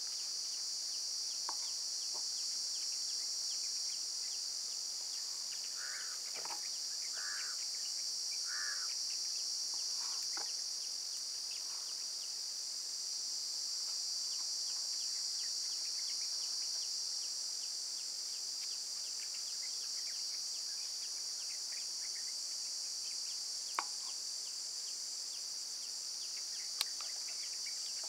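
Steady high-pitched chorus of insects buzzing, with three short bird calls about six to nine seconds in. A couple of sharp taps of a knife on a plastic cutting board stand out near the end as boiled eggs are chopped.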